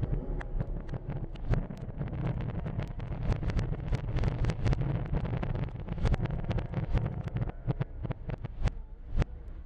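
Fireworks finale: many rapid, overlapping bangs and crackles over a continuous low rumble, thinning to a few separate bangs near the end.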